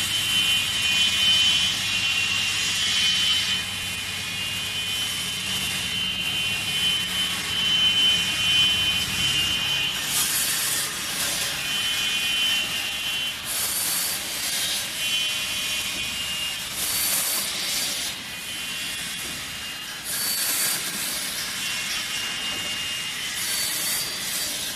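An electric cutting saw runs with a steady high whine. From about ten seconds in, it cuts through compressed wood-chip pallet blocks, giving a burst of rasping saw noise every three to four seconds, five cuts in all.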